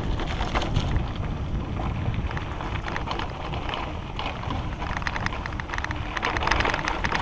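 Hardtail mountain bike ridden fast on dry singletrack: wind rumbling on the camera's microphone, tyres crackling over dry leaves and dirt, and the bike rattling and clicking over bumps, busiest near the end.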